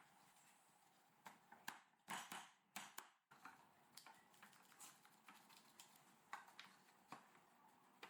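Faint scattered clicks and taps, with a few louder rough, scraping bursts about two to three seconds in.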